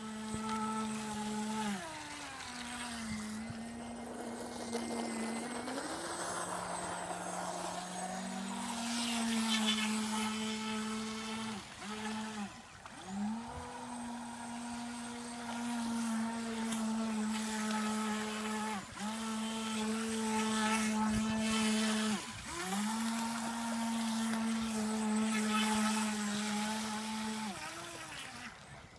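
Feilun FT012 RC racing boat's brushless electric motor whining at a steady high pitch. It drops away several times as the throttle is let off and winds straight back up each time.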